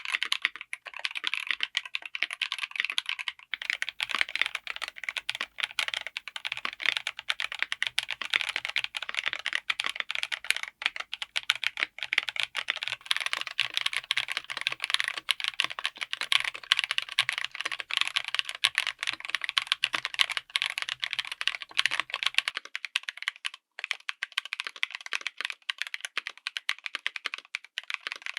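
Continuous fast typing on a mechanical keyboard fitted with tactile switches: a dense clatter of many keystrokes a second. A faint low hum sits under the typing from a few seconds in until about three-quarters of the way through.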